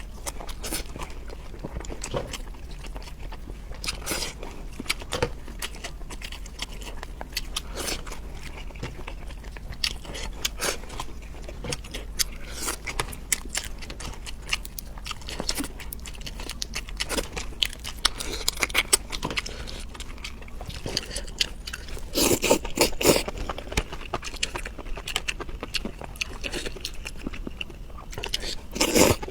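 Close-miked eating: wet chewing and biting with many small clicks and crunches, louder for a couple of seconds about three quarters of the way through and again at the end.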